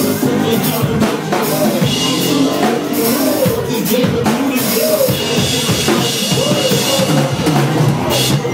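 Live electronic dance music played loud through a stage sound system: a drum kit beating out kick and snare under synthesizers, with a wavering saxophone melody on top.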